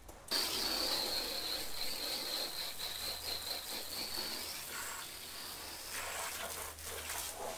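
Garden hose spray nozzle switched on suddenly, water hissing as the jet hits the side of a camper, with a thin high whistle from the nozzle for about four seconds before it drops away while the spray goes on.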